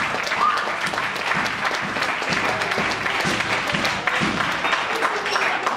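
Audience applauding, a steady patter of hand claps.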